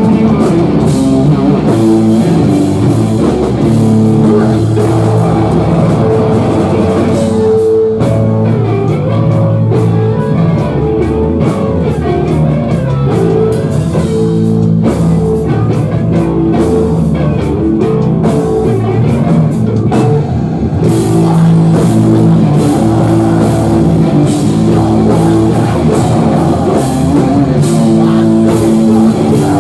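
A live heavy rock band plays loud electric guitar and drum kit, heard from within the crowd. About eight seconds in the cymbals drop away, and they crash back in at full force about two-thirds of the way through.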